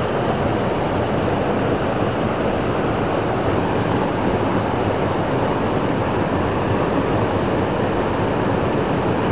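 Mountain stream's rapids rushing over boulders: a steady, unbroken white-water noise.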